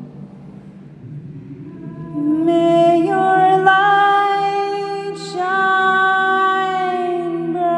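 A woman singing long, held wordless notes that begin about two seconds in, with a short breath between them about halfway, over a low steady drone. The voice rings in the stone King's Chamber of the Great Pyramid.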